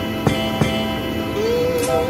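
Background music: held chords over a steady beat, with a wavering melody line coming in about a second and a half in.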